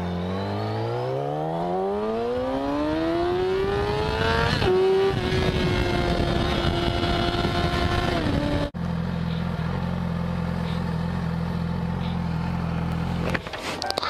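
A 2010 Yamaha YZF-R6's inline-four through an Akrapovic megaphone exhaust accelerating hard. Its pitch rises steadily for about four and a half seconds, then holds at high revs for about three more. About eight and a half seconds in the sound breaks off, and the engine idles steadily.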